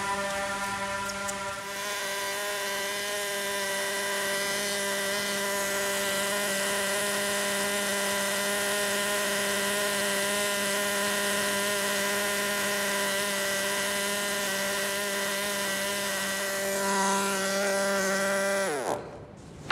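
Small high-speed power tool motor running with a steady whine, then winding down in pitch as it is switched off near the end.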